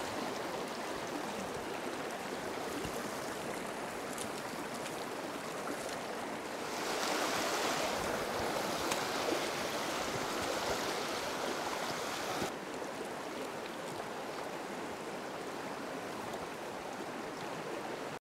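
Shallow rocky stream running over cobbles, a steady rush of water. It grows louder for about six seconds in the middle, then falls back, and cuts off abruptly at the very end.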